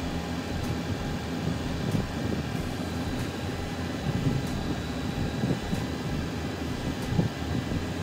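Steady hum of an idling car engine, with soft, irregular swishes and scrapes of a snow brush pushing snow off the car.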